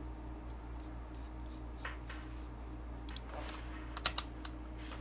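A few scattered computer keyboard and mouse clicks. The first comes about two seconds in, and several follow close together near the end, over a steady low hum.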